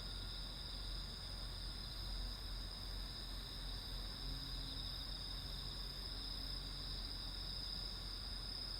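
Chorus of night insects trilling steadily in two high, continuous bands. A faint low hum comes and goes in the middle.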